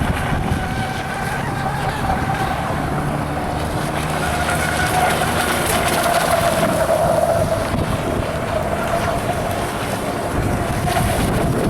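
Miss Geico RC model racing boat's motor whining steadily as it runs at speed on the water, its pitch rising a little midway and then easing. Wind rumble on the microphone underneath.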